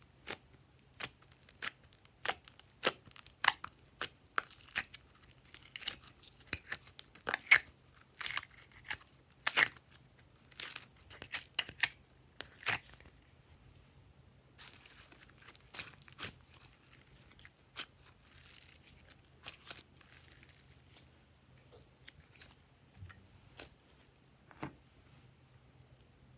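Glossy slime being pulled out of a plastic palette tray and squeezed in the hand: a dense run of sticky crackles and sharp pops for about the first half, then softer squishing with a few scattered pops.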